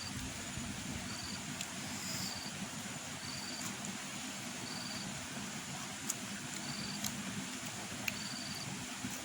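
An insect chirping steadily, a short high chirp about once a second, over a steady background hiss, with a few sharp clicks in the second half.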